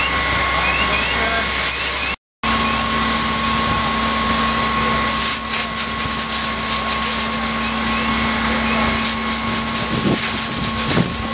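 Firefighting hose nozzle spraying a strong jet of water, a steady rushing hiss, with a steady machine whine and hum underneath. It drops out briefly about two seconds in and then carries on.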